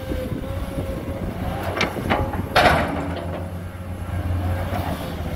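Komatsu PC210 crawler excavator's diesel engine working steadily as it digs and lifts its bucket. A few sharp knocks are heard, the loudest about two and a half seconds in.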